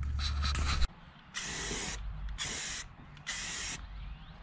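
Aerosol can of black gloss enamel spray paint hissing in three short bursts, each about half a second, about a second apart. Before them, a low hum with background noise cuts off abruptly just under a second in.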